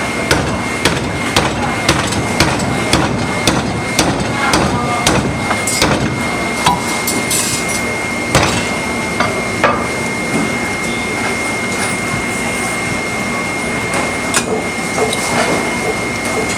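Meat cleaver chopping pork on a chopping block: a fast run of sharp blows about two a second, which then slows to a few scattered chops.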